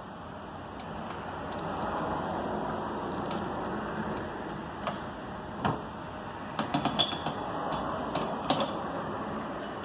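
A scatter of sharp clicks and knocks, as plumbing fittings and a water line are handled and connected, over a steady hiss.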